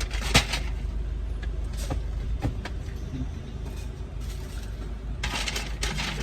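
Car engine idling with a steady low rumble, heard from inside the car, with handling noises over it: a sharp knock about half a second in, a few lighter clicks, and a short noisy stretch near the end.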